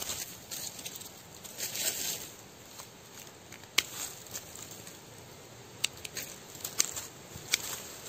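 Hand pruning shears snipping thin stems and roots around the base of a small shrub: about four sharp clicks from around halfway, irregularly spaced, after a stretch of rustling dry leaves and twigs being pushed aside.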